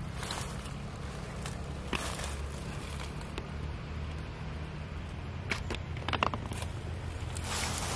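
Dry leaf litter crackling and rustling in scattered small clicks, with a denser cluster of crackles about six seconds in, over a low steady rumble on the microphone.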